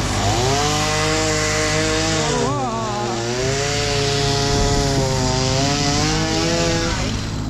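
Two-stroke chainsaw revving up and running at high speed for about seven seconds, its pitch dipping briefly a couple of seconds in, then cutting off. A steady engine drone runs underneath.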